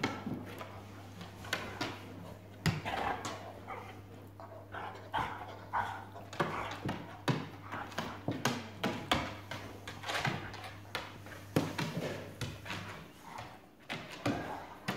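A large dog playing rough with a cat: the dog's claws click and scrabble on wooden floorboards, mixed with short dog vocalisations.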